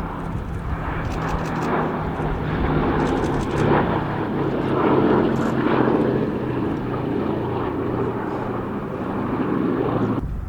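Boeing B-17G Flying Fortress's four radial piston engines droning steadily in flight. The sound swells around the middle and cuts off suddenly near the end.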